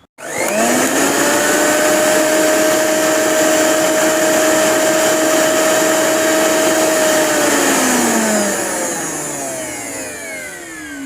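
Preethi Zodiac mixer grinder motor switched on, spinning up within a second to a loud, steady high-speed whine and whir. About seven and a half seconds in it is switched off and winds down, its pitch falling as it slows.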